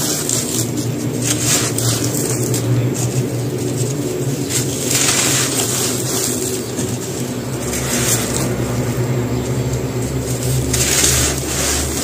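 Dry handmade cement slabs crumbled by hand, the powdery dust and grit pouring from the fingers onto a dusty heap with a crisp, gritty hiss that swells three times. A steady low hum runs underneath.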